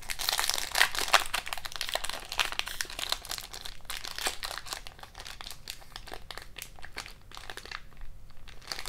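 Foil hockey-card pack wrapper crinkling and crackling under the fingers as it is worked at to tear it open; the wrapper does not want to rip. The crackling is louder for the first few seconds, then goes on more softly.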